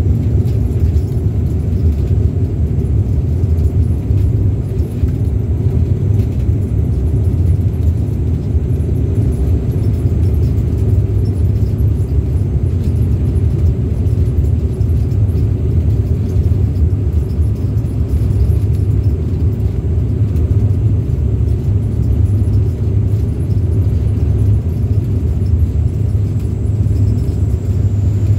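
Steady low drone of a Dash 8 Q400's turboprop engines and propellers, heard inside the passenger cabin.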